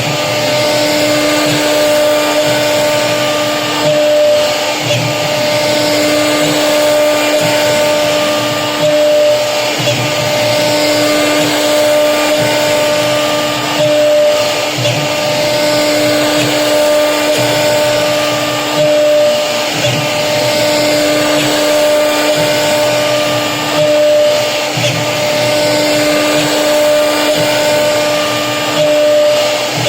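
CNC router spindle running with a steady high whine while the bit cuts HDHMR board. The cutting noise swells and eases in regular cycles every few seconds.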